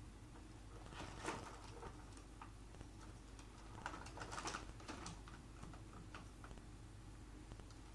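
Light, irregular clicks and scratches of a cat pawing at a wooden closet drawer, in two flurries: one about a second in and a longer one around the middle.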